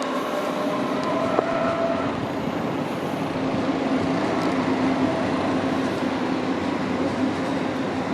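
A train running through the station: steady rolling rail noise with a constant hum, and a thin higher tone about one to two seconds in.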